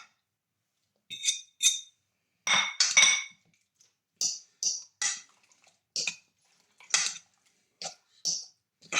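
A kitchen utensil clinking and scraping against a dish as egg and other omelette ingredients are put together: about a dozen short, irregular strokes, the loudest a pair about two and a half seconds in.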